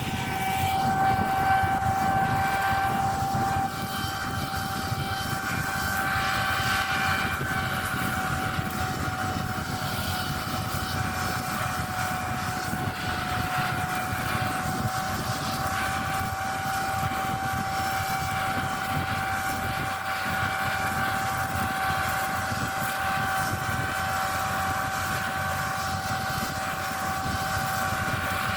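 Combine harvester running steadily at working speed: a constant drone with a steady high whine held over it.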